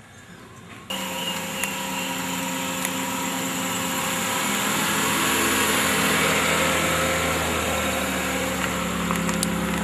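Maruti Suzuki Alto's small petrol engine running: a steady hum that starts suddenly about a second in and grows louder toward the middle.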